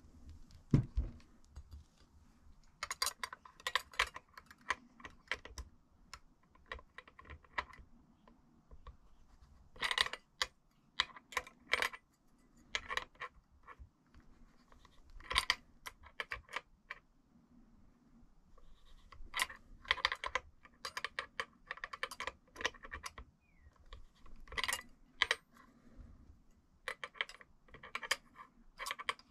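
Irregular bursts of small, sharp clicks and rattles from hand tools and small metal parts being worked, each burst lasting a second or two, coming every few seconds.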